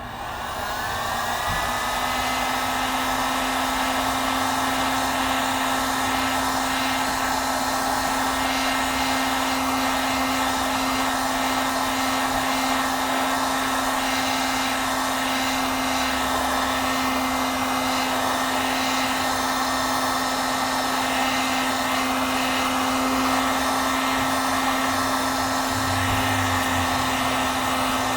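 Handheld hot-air gun switched on, its motor whine rising over the first second or so, then running steadily with an even rush of blown air and a constant hum. It is heating the phone's screen to soften the adhesive under the cracked glass.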